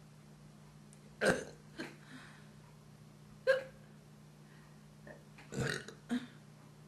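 A woman burping several times: a loud burp about a second in, a short sharp one near the middle and a longer one near the end, with smaller burps in between.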